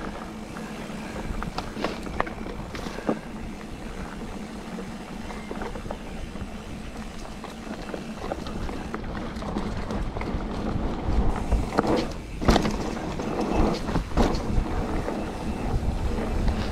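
Mountain bike riding along a dirt woodland singletrack: steady tyre and wind rumble with scattered clicks and rattles from the bike over bumps, growing rougher with a run of knocks about twelve seconds in.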